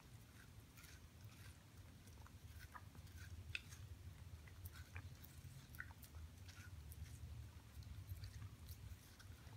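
Shiba Inu puppy faintly chewing and biting a wedge of watermelon held in a hand: soft, irregular wet clicks and smacks over a low steady hum.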